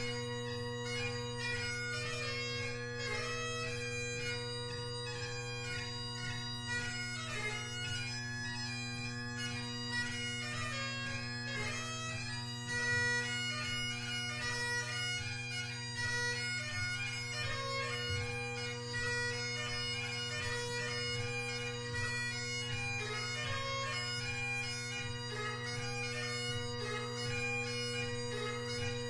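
Great Highland bagpipe playing a lively tune: McCallum drones hold a steady bass-and-tenor chord while the G1 blackwood chanter plays a fast, ornamented melody above them without a break.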